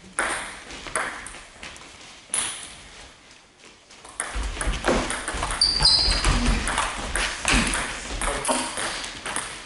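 Table tennis ball clicking off bats and the table, a few single hits first and then a fast rally over the second half, with a low rumble under the rally and a brief high squeak about six seconds in.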